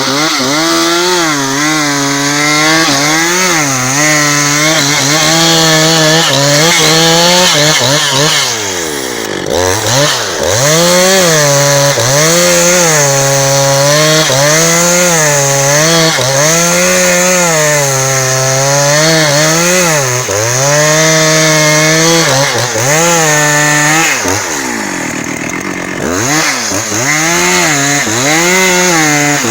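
Husqvarna 272XP two-stroke chainsaw with a 30-inch bar ripping a log lengthwise at high revs, the engine speed sagging and recovering about every two seconds as the chain bites. Twice, around a third of the way in and again near the end, the engine drops much lower and then climbs back up.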